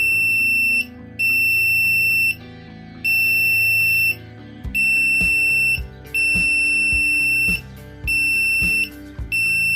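Electronic alarm buzzer of a DIY touch-sensor door alarm kit, set off by touching the sensor. It sounds a steady high-pitched beep that switches on and off about seven times, each beep about a second long with short gaps.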